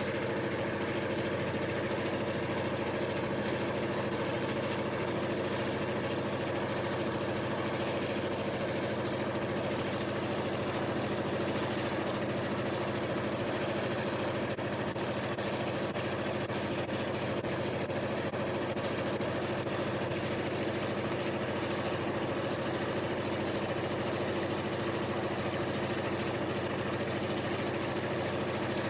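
EMD GP diesel-electric locomotive's two-stroke diesel engine running steadily at full throttle in notch 8, holding one even pitch throughout.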